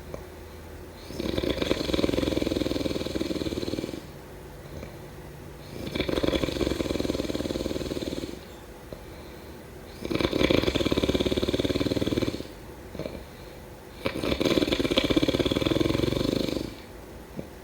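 A person snoring in a slow, regular rhythm: four long, rattling snores, each about two and a half seconds, one roughly every four seconds, with quieter breathing between them.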